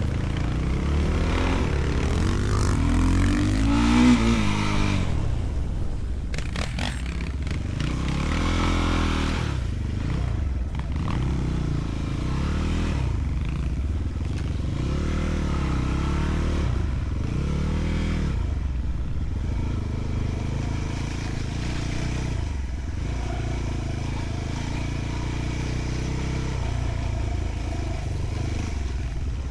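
Enduro motorcycle engine revving up and down again and again under throttle, with clattering and scraping from the bike and a brief run of sharp rattles about six to seven seconds in.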